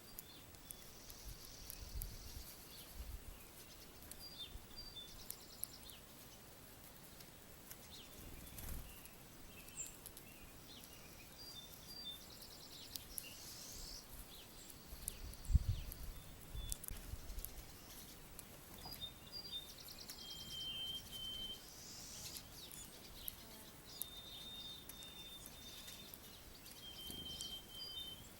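Several small songbirds chirping and calling, with short trills and a few clear, steady whistled notes in the second half. Occasional low thumps, the loudest about halfway through.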